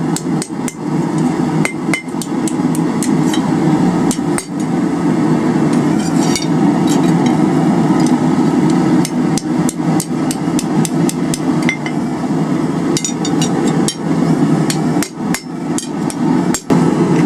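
Cross-peen hammer striking hot round bar steel on an anvil: a run of uneven blows, often several a second with short pauses between, as a small bend in a forged coal rake is cleaned up. A steady low drone runs underneath.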